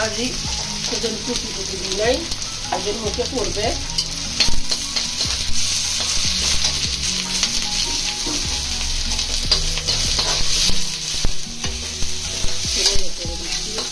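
Onions sizzling in hot mustard oil in a pan while being stirred, the spatula scraping and knocking against the pan. The sizzle grows louder about four seconds in.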